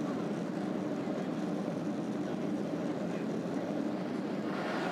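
Cabin noise inside a Boeing 767-200 rolling out on the runway after landing, spoilers raised: a steady low rumble, with a louder hiss coming in near the end.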